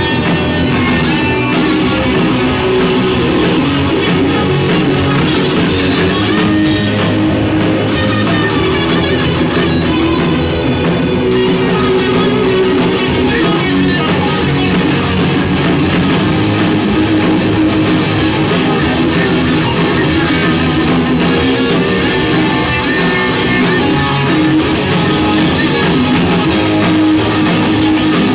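A rock band playing live: electric guitar over a drum kit, loud and unbroken.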